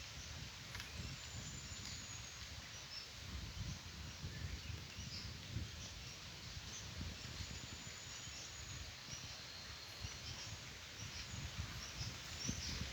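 Outdoor nature ambience: wind gusting on the microphone as an uneven low rumble, over a steady high hiss of insects with scattered faint, short bird chirps.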